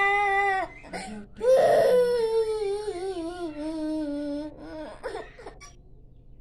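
A young child crying: one long wailing cry starts about a second and a half in and slides slowly down in pitch, followed by a few short sobs. The crying trails off near the end.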